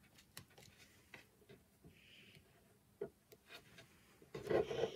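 Faint handling sounds of wires and crocodile-clip leads being connected to an LED panel circuit board: scattered small clicks and rubs, with a louder rubbing noise near the end.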